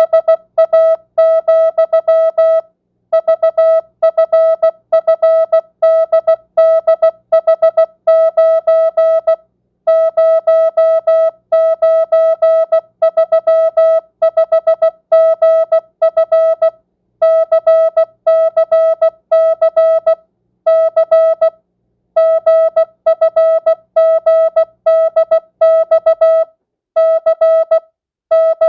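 Morse code (CW) sent at 16 words per minute with standard, non-Farnsworth spacing: a single steady mid-pitched tone keyed on and off in short dits and longer dahs. There are brief gaps between letters and longer pauses between words.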